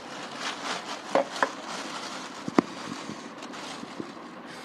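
Handling noise from a satellite speaker and its cable: rustling with a few small clicks and knocks, the sharpest one about two and a half seconds in.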